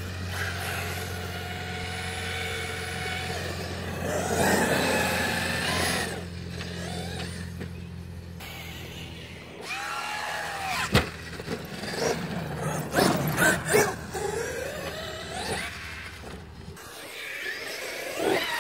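Traxxas X-Maxx electric RC monster truck driving, its motor whine rising and falling in pitch as it speeds up and slows. A steady low hum lies underneath and stops near the end, and there is a single sharp knock partway through.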